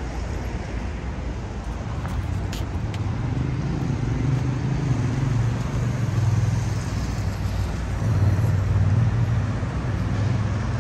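City street traffic: a motor vehicle's engine running close by over steady road noise, growing louder about three seconds in and staying strong through the rest.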